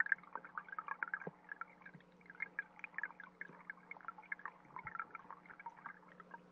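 Stream water trickling, heard through an underwater GoPro: dense, irregular faint pops and ticks over a steady low hum.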